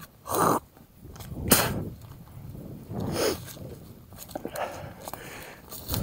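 Mountain bike riding over a rough dirt trail: irregular knocks and rattles from the bike, with the sharpest jolt about a second and a half in and scattered clicks later.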